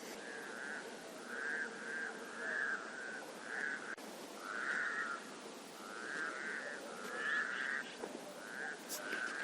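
Frogs croaking over and over in a lakeside chorus, rough, rattling calls at one pitch coming one or two a second and sometimes overlapping, over a steady hiss.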